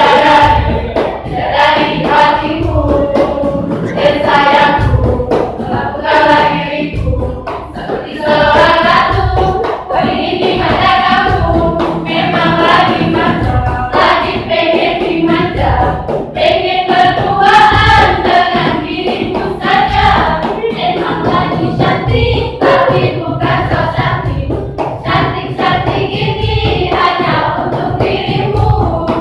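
A student choir singing a song in several voices, with a steady low thumping beat about once a second underneath.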